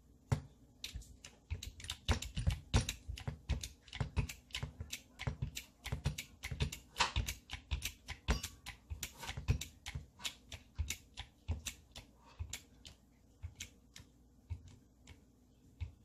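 Hand-pumped hydraulic crimping tool being worked to crimp a terminal onto a battery cable: a run of irregular clicks and clacks from the pump-handle strokes, several a second, thinning out toward the end.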